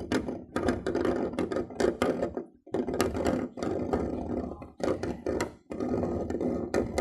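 Scratching at a door: long runs of rapid rasping, clicking strokes broken by a few short pauses.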